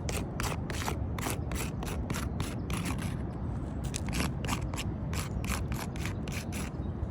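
A run of short, gritty scrapes on asphalt roof shingles, about three to four a second, with brief pauses partway through, over a steady low rumble.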